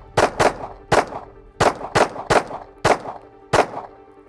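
A 9mm semi-automatic pistol firing about nine rapid shots in quick strings, some of them in close pairs, each a sharp crack with a short ringing tail. Background music plays underneath.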